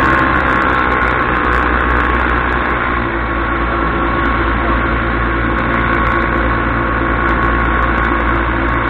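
Paramotor engine and propeller running steadily in flight, an even drone at a constant pitch.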